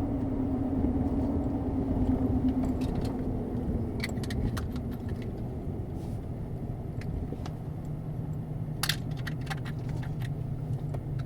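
Steady road and engine noise inside a moving car, with two short bursts of light metallic jingling, about four seconds in and again near nine seconds.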